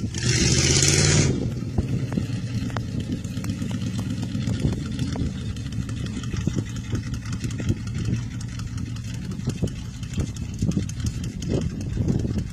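The 350 V8 in a lifted 1988 Jeep Comanche running as the truck drives around, heard from a distance as a steady low exhaust note. It opens with a loud rushing burst lasting about a second.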